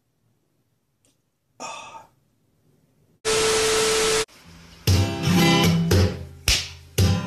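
A one-second burst of loud TV static with a steady test-tone beep through it, cutting off suddenly, then strummed acoustic guitar music with a regular beat starting about five seconds in. A short pitched sound comes about a second and a half in, after near silence.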